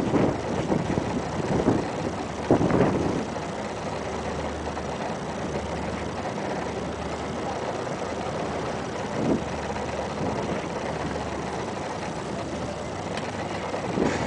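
Dust-storm wind rushing and gusting over the microphone, swelling louder a few times, with a low steady hum underneath.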